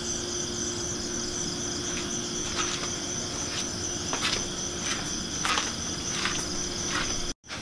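Crickets chirping steadily, with a faint low hum under them. From about a third of the way in, a row of short footsteps about 0.7 s apart. The sound cuts out for a moment near the end.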